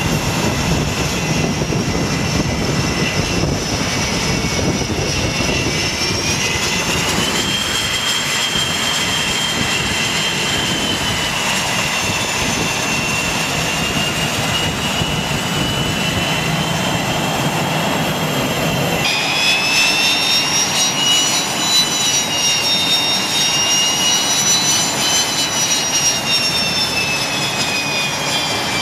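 Military jet engines running on an aircraft carrier flight deck: a steady high whine over a rushing roar. The whine rises in pitch about seven seconds in, and about two-thirds of the way through it switches abruptly to a brighter, louder whine that wavers up and down.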